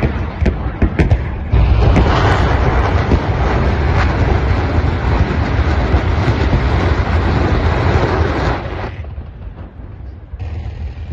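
Multiple-barrel rocket launcher firing a salvo: rockets leave in quick succession as a continuous heavy roar laced with sharp cracks. It starts a second or so in and dies away near the end.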